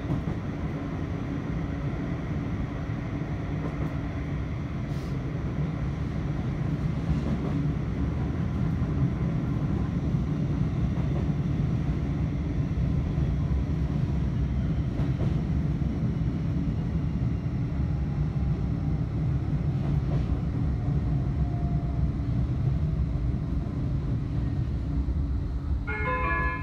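Bombardier Flexity 2 light-rail tram running along the track, heard from inside the passenger saloon: a steady rolling rumble with a steady hum over it. It grows a little louder after about six seconds.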